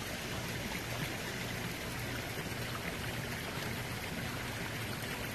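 Aquascape spillway bowl fountain: water pouring steadily from the upper bowl's spout into the lower bowl and spilling over its rim, a constant even splashing.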